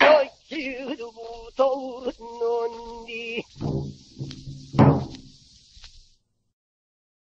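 Closing phrases of a male pansori singer's wavering, broken-off vocal line, punctuated by sharp barrel-drum (buk) strokes, over the steady hiss of an old record. The recording stops dead about six seconds in.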